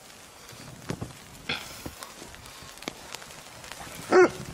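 Snow crunching and crackling as a large snowball is rolled and pushed through snow and feet tread around it, with a few sharp crunches. A dog barks once near the end.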